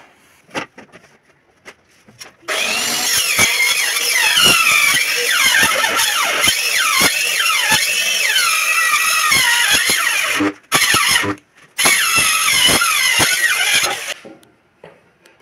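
Handheld electric circular wood cutter sawing through plywood: a loud high whine whose pitch dips and recovers as the blade takes the load. It starts about two and a half seconds in, breaks off twice briefly near the end, then runs down and stops.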